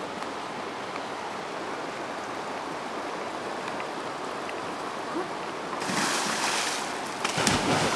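A person dropping off a rope swing into lake water with a loud splash about six seconds in, after a steady outdoor hiss. A second sharp burst of noise follows just before the end.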